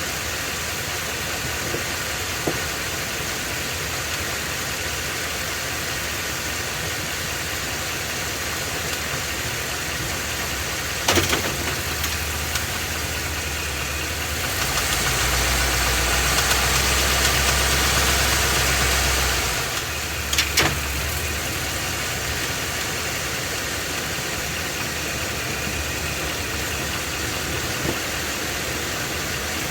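Ford 7.3-litre Godzilla gasoline V8 in an F250 running at idle with an abnormal engine noise, the fault that has the engine being replaced. The engine note rises and grows heavier for about five seconds in the middle, then settles back. Two short sharp clicks come about eleven and twenty seconds in.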